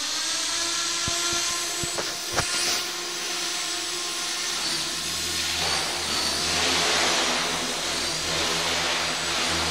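Radio-controlled helicopter's motor and rotor running: a steady whine with a few sharp clicks in the first couple of seconds. About halfway through, a rushing rotor noise with a low hum grows louder as the blades come up to speed.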